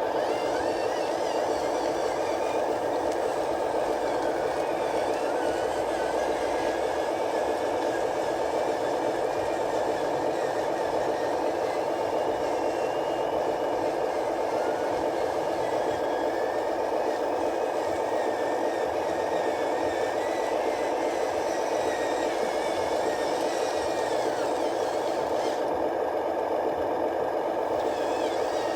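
A remote-control truck running steadily, with a faint whine above it that wavers up and down in pitch.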